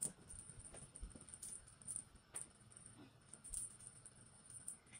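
Faint, scattered light clicks and rustles as a kitten leaps and bats at a feather wand toy on a shag rug.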